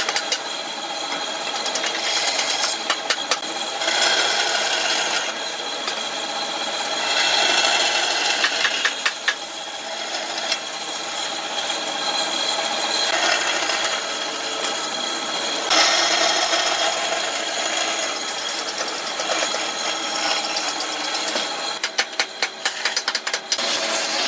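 Woodworking tool noise: a power tool running against wood, shifting in character every few seconds, with rattling clicks near the end.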